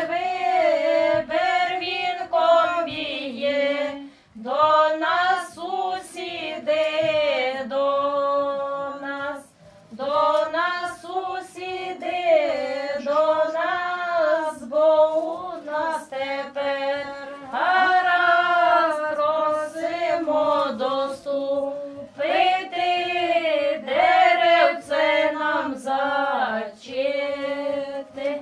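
Several women singing a folk song together, unaccompanied, in two parallel voice parts. The song goes in long phrases with short pauses for breath about four and nine and a half seconds in.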